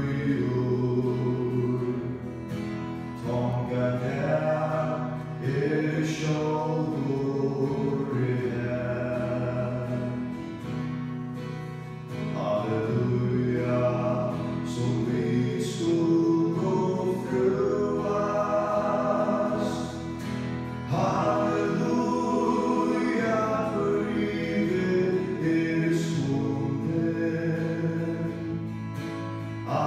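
A small group of voices singing a hymn in Faroese, with a man's voice at the microphone and acoustic guitar accompaniment.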